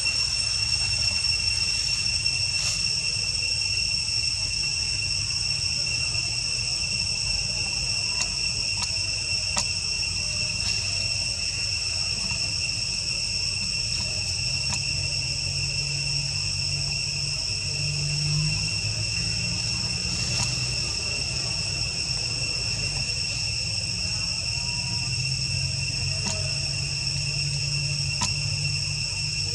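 Forest insects droning: a continuous, steady, high-pitched buzz with a low rumble underneath.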